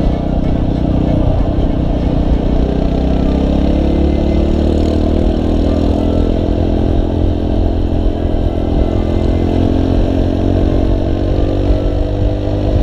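Motorcycle engine heard from the rider's seat, with a brief dip in revs about a second in, then pulling steadily with its pitch climbing slowly as the bike accelerates.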